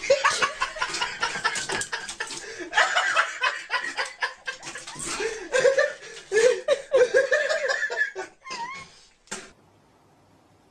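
A person laughing in repeated fits, breaking off about nine seconds in.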